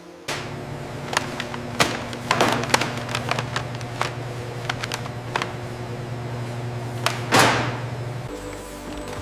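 Food-processing machinery running with a steady low hum, with irregular clicks and clatters throughout and a short burst of hiss about seven seconds in.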